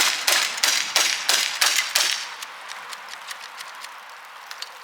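A CO2-powered BB gun fired rapidly, sharp pops about three a second for the first two seconds, then it stops; a few faint ticks follow.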